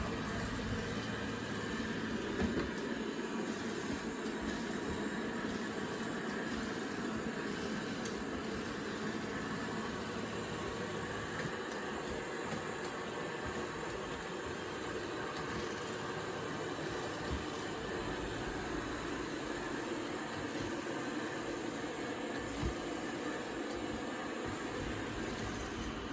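Anker eufy robot vacuum cleaner running: a steady motor and brush whir with a few faint knocks.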